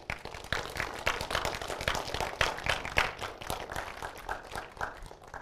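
Applause: many hands clapping in a dense, irregular patter that thins out toward the end.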